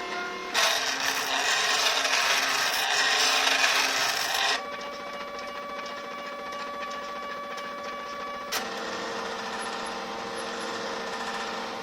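CNC machine running, its motors whining at steady pitches that jump to a new pitch abruptly about every four seconds as it moves from one cutting pass to the next. A loud rasping noise runs over the first four seconds or so.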